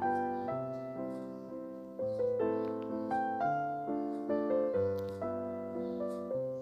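Background piano music: a gentle melody of single struck notes, each fading away, about two notes a second.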